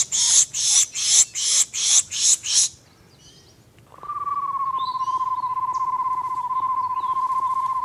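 A person pishing to call in songbirds: about eight short hissing bursts in quick succession. After a pause, a long trill on one even pitch that lasts about five seconds.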